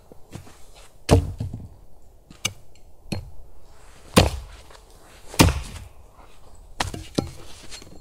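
Wood being chopped with an axe or hatchet: about six sharp, irregularly spaced strikes, the loudest a little over a second in, about four seconds in and about five and a half seconds in.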